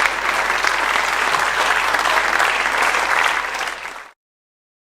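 Concert audience applauding, dense and steady, fading away about four seconds in as the recording cuts to silence.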